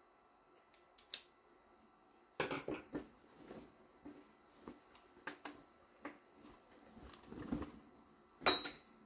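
A single scissor snip about a second in. Then a run of irregular handling noises: rustles, light taps and clicks of the shirt, backing and scissors being moved on a wooden table, with the sharpest click near the end.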